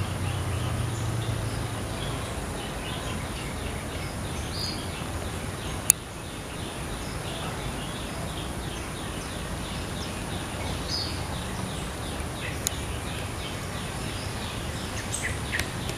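Outdoor yard ambience: birds chirping, with a long run of short repeated chirps about twice a second through most of it, over a low steady rumble. There is a sharp click about six seconds in and another near the end.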